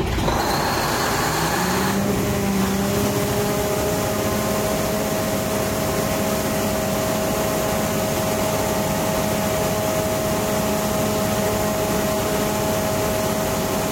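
Ship's diesel emergency generator engine, just started on its battery starter, running up in pitch over the first two seconds and then running steadily at speed.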